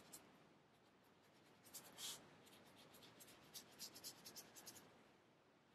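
Faint, dry swishes of a nylon paintbrush stroking thinned gouache onto paper: a run of short strokes from about two seconds in until nearly five seconds, the loudest about two seconds in.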